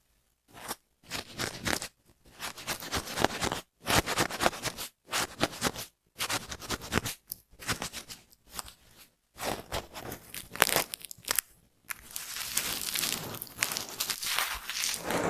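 Crisp, crackling scratching of dandruff flakes being scraped and picked from a scalp, in short bursts cut off by sudden silent gaps.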